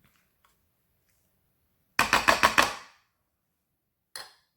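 Utensil clattering against a plate while food is mixed: a quick run of about six sharp knocks about two seconds in, then a single knock near the end.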